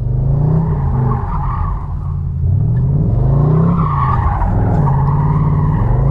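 Chevrolet Camaro SS V8 revving up and falling back several times while the car slides through a drift, its rear tyres squealing and skidding on the asphalt.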